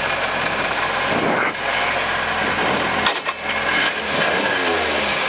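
Toyota Corolla Twincam rally car's twin-cam four-cylinder engine running while the car waits at the stage start, heard inside the cabin, with the revs rising near the end. A few sharp clicks sound about three seconds in.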